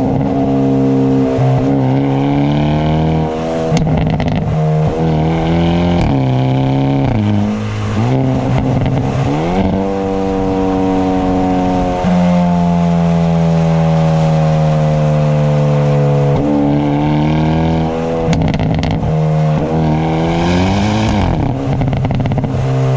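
Hyundai Elantra N's turbocharged 2.0-litre four-cylinder accelerating hard through the gears. The engine note climbs and drops sharply at each quick dual-clutch upshift, several times in a row. Its pitch then falls slowly for several seconds before climbing through more shifts near the end.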